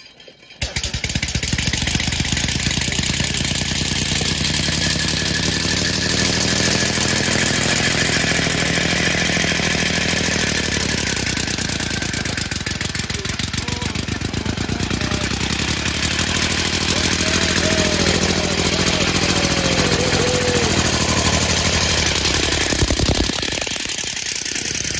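Homemade three-cylinder compressed-air engine driving a lawnmower-based cart, running in a rapid stream of pulses. It starts abruptly about half a second in and cuts off suddenly near the end.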